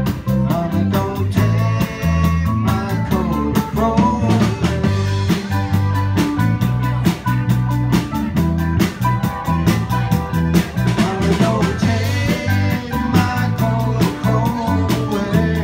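Live band music amplified through PA speakers: a steady drum-kit beat with electric guitar, bass notes, keyboard and a singing voice.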